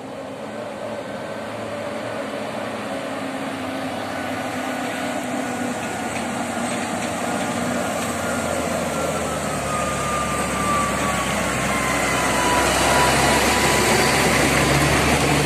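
Mitsubishi Fuso diesel truck driving up the road and passing close, its engine growing steadily louder as it approaches, with a whine that falls in pitch about halfway through.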